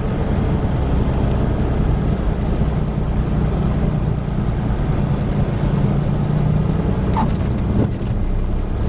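Cessna 182 Skylane's piston engine and propeller running steadily, heard from inside the cabin with wind noise, through the landing flare. About seven seconds in there is a brief chirp, the tyres touching down on the runway.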